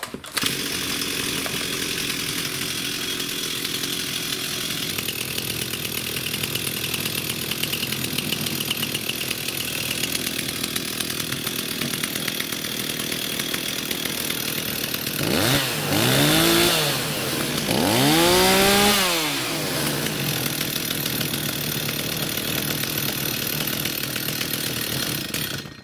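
Stihl 026 two-stroke chainsaw engine idling, revved up and back down twice about two-thirds of the way through. At idle the chain creeps around the bar, which points to weak, worn clutch springs.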